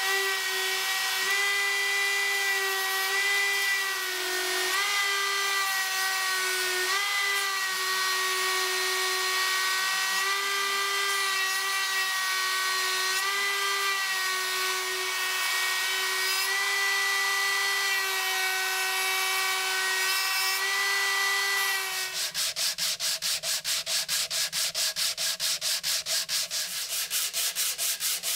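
A small high-speed power tool runs with a steady whine, its pitch dipping briefly now and then as it is loaded against the work. About three quarters of the way through it stops, and quick, even back-and-forth sanding strokes follow, several a second.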